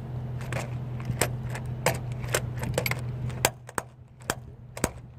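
Roof rack strap ratchet clicking about twice a second as its handle is worked, without tightening the strap, which points to a ratchet that isn't catching. A steady low hum underneath stops about three and a half seconds in.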